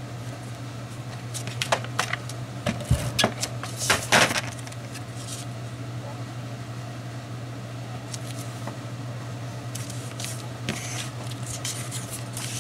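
Paper handling on a scrapbook page: short rustles, scrapes and taps as layered papers and a photo are pressed down and shifted, in two bursts, the louder one about four seconds in. A steady low hum runs underneath.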